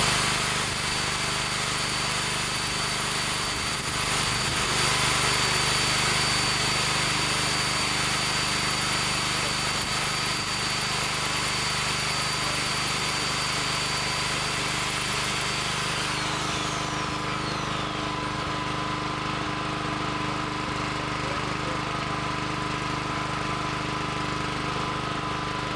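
An engine running steadily together with a power drill's high whine as it bores into the concrete slab. About two-thirds of the way through, the whine falls away as the drill spins down, while the engine keeps running.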